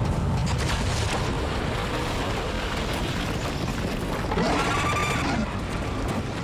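Sound-designed collapse of a huge ice wall: a deep, continuous rumbling and crashing of falling ice. About four and a half seconds in, a long pitched cry rises and falls over the rumble.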